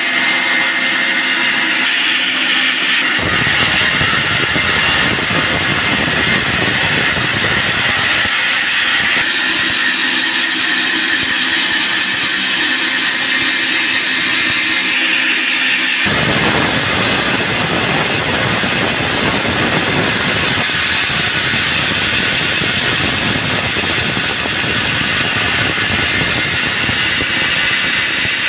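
Band sawmill running steadily, its engine and blade making a loud, even noise; a deep rumble cuts in about 3 seconds in, drops out about 8 seconds in, and returns about 16 seconds in.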